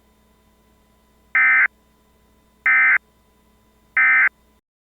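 Emergency Alert System end-of-message signal: three short, identical bursts of shrill digital SAME data tones, evenly spaced about a second and a quarter apart, marking the end of the alert.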